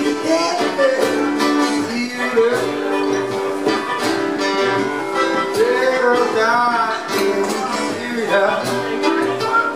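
Man singing to his own strummed acoustic guitar, a live solo performance with a steady strumming rhythm under the sung melody.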